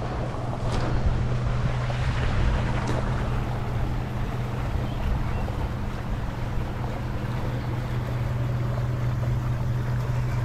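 Steady rush of flowing river water under a constant low hum, with a couple of light clicks about a second in and again near three seconds.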